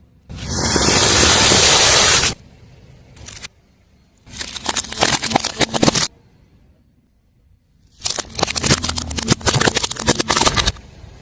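Car tyre rolling over and crushing brittle objects. There is a loud rush of noise lasting about two seconds near the start, then two spells of rapid crackling and crunching a few seconds apart.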